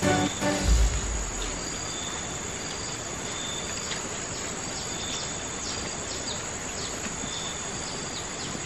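Plantation ambience of insects: a steady high-pitched buzz with short high chirps repeating irregularly throughout. Music cuts off in the first second, ending on a low thump.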